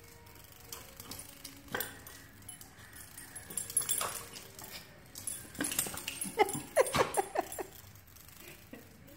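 A dog gives a quick run of short whines and yips about two-thirds of the way through, with scattered sharp clicks of claws and collar tags on a hard floor before it.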